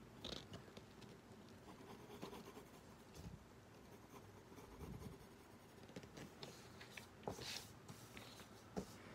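Faint scratching of a pencil sketching on paper, in short irregular strokes, with a few louder ones near the start and about seven seconds in.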